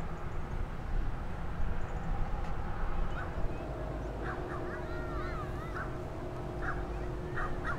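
Bird calls, a run of short calls starting about three seconds in, some wavering in pitch. Under them is a steady low rumble with a faint hum.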